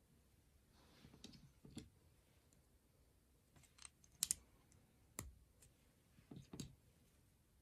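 Faint plastic clicks of Lego bricks being handled and pressed onto a model: a scattering of small clicks and taps, the sharpest about four seconds in.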